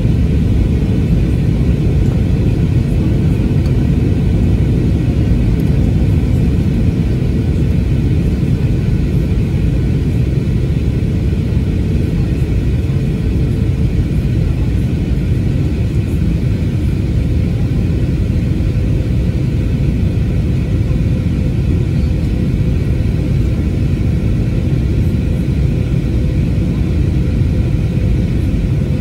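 Steady cabin rumble of an Airbus A321neo with CFM LEAP-1A engines in descent: engine and airflow noise heard from a rear window seat, with a faint steady hum above the rumble.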